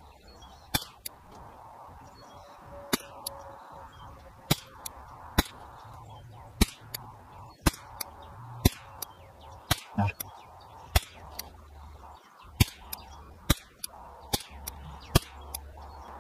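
.22LR rimfire rifle with a 28-inch Green Mountain stainless bull barrel on a 10/22-pattern receiver, firing Lapua Long Range rounds in a quick string. Each shot is a sharp, light crack, with roughly one loud crack a second and fainter cracks in between.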